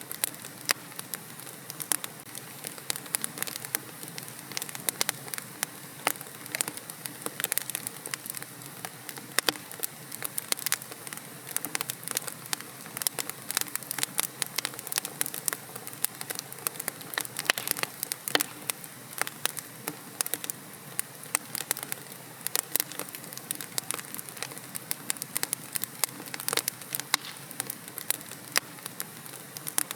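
Wood fire crackling steadily in a fireplace: a constant low hiss with many sharp pops and snaps scattered densely throughout.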